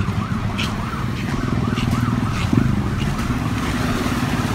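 Siren on the yelp setting, its pitch rising and falling about three times a second, over a steady low traffic rumble.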